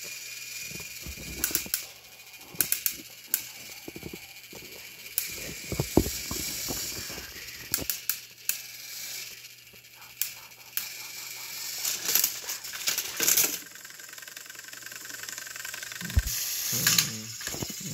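Small battery-powered Thomas & Friends toy engines' gear motors whirring while two engines push against each other on plastic track. Wheels and couplings rattle and click, with sharp knocks scattered throughout.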